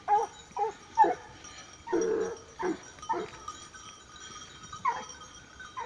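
Dog barking in short, spaced barks, about eight in all, with one longer bark about two seconds in.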